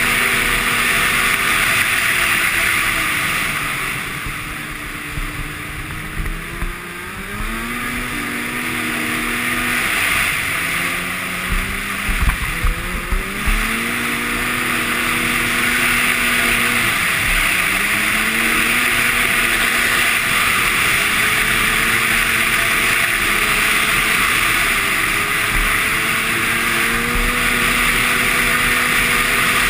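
Arctic Cat Sno Pro 500 snowmobile engine under way on a trail, running at a steady cruise. It eases off about four seconds in and revs back up around eight and thirteen seconds, then dips and climbs again later on. Wind rushes over the microphone throughout, and a few knocks come about twelve seconds in.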